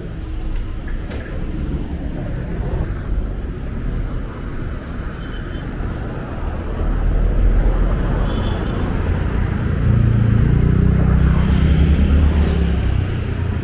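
Road traffic: vehicle engines running with a steady low rumble that grows louder about seven seconds in and again around ten seconds in, as vehicles pass close by.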